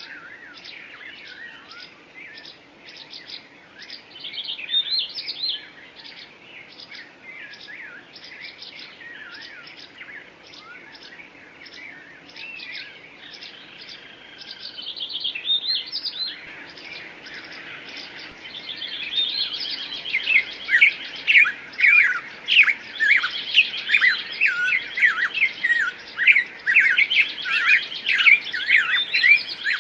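Songbirds chirping and singing in quick repeated notes and short sweeping calls, growing louder and busier about two-thirds of the way through.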